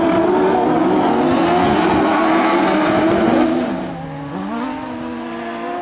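Turbocharged 939 cc Ford engine of an autocross buggy running hard at high revs. About three and a half seconds in it eases off and gets quieter, its pitch dipping, then climbing steadily again.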